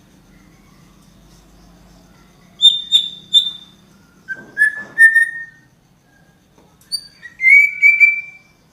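A bird singing clear whistled notes in three short phrases: three high notes, then a few lower notes that step upward, then a quick run of notes near the end.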